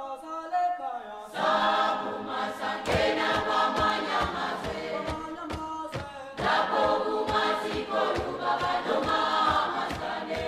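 Intro music: a choir singing, growing fuller about a second in, with a steady beat of low percussive strokes joining about three seconds in.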